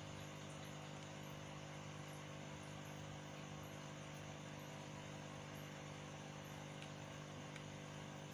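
A steady low electrical hum, with a faint hiss over it.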